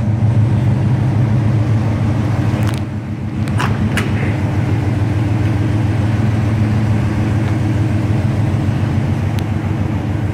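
1984 GMC pickup's engine idling with a steady low hum, and a few sharp clicks of the cab door about three to four seconds in.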